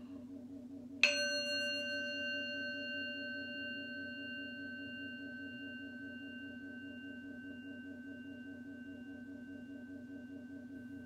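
Small brass singing bowl struck once about a second in, then ringing on with several steady overtones that slowly fade. Its ring is the cue to inhale in a breathing exercise.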